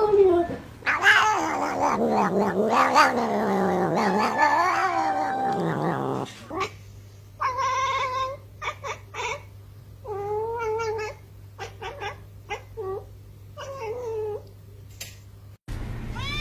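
A domestic cat yowling: a long, wavering, drawn-out cry for about six seconds, then a string of shorter separate meows.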